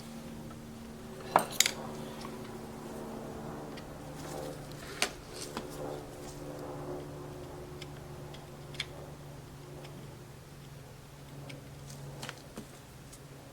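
Small metal tools clinking and tapping against hard surfaces in a few scattered sharp clicks, over a faint steady electrical hum.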